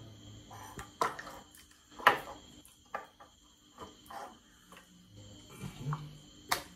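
Ceramic bowls and a wooden bowl being handled on a kitchen countertop as fufu is dished out by hand: a handful of sharp, irregular knocks and clinks, over a faint steady hum.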